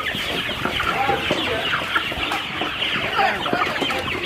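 A large flock of chickens in a poultry house clucking and calling all at once, many short overlapping calls blending into a steady, continuous din.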